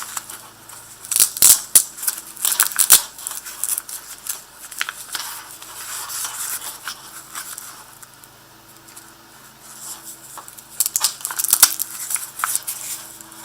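Velcro strap on a knife sheath being ripped open and pressed shut, a rasping tear in two bouts, one about a second or two in and one near the end, with quieter handling noise between.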